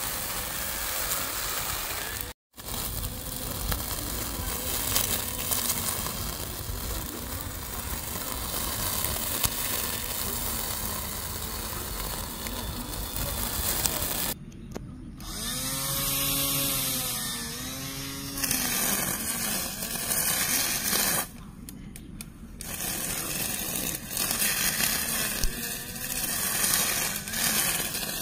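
Small handheld electric grass trimmer running as its spinning head cuts through grass and weeds. The sound cuts out for an instant about two seconds in, and around the middle the motor's whine dips and recovers twice as the head bites into the growth.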